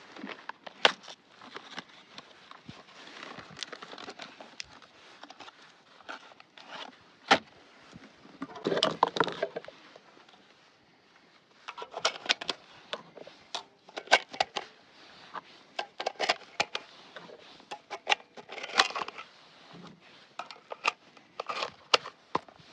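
Irregular sharp clicks, clacks and scrapes from an AR-style semi-automatic 12-gauge shotgun being handled, with a longer rattling scrape about nine seconds in and another near nineteen seconds.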